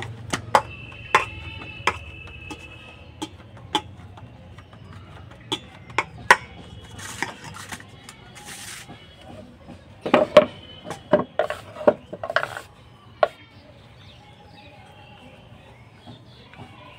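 Dough being handled in a steel bowl: scattered light knocks and clinks of hands and metal bangles against the bowl, busiest about ten to twelve seconds in.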